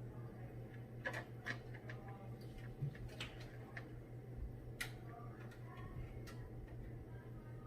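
Scattered sharp clicks and taps of PC parts being handled and fitted into the computer case, over a low steady hum.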